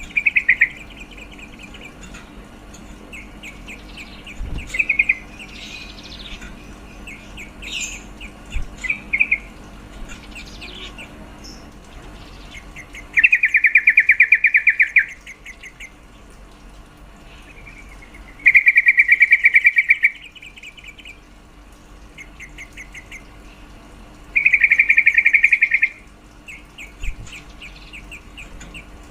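Female yellow-vented bulbul (trucukan) giving rapid chattering trills: a few short ones in the first ten seconds, then three loud trills about two seconds long, roughly five seconds apart. This is the female's call to the male, meant to stir him into singing.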